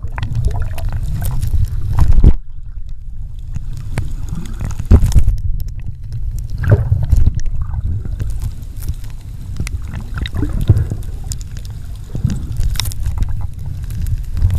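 Muffled, low rumble of water moving around a camera held underwater, with scattered light clicks and knocks. About two seconds in, the hiss above the rumble cuts off and the sound turns duller.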